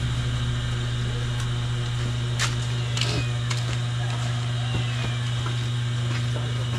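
Steady low machine hum, with a few sharp clicks and faint voices in the background.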